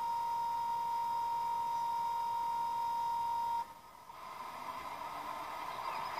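Sound recording of a DB class 218 diesel locomotive's TB11 engine, played through the small built-in speaker of a Roco H0 model. The oil pre-lubrication pump gives a steady whine, then stops about three and a half seconds in, and the engine start begins with its noise building up.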